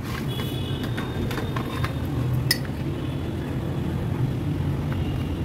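Metal spoon clinking and scraping against a ceramic bowl while stirring cornflour with milk: scattered light clinks, the sharpest about two and a half seconds in, over a steady low hum.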